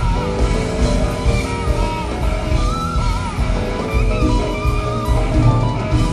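Live jazz-rock band playing: a lead electric guitar line with wavering, bending notes over drums and bass.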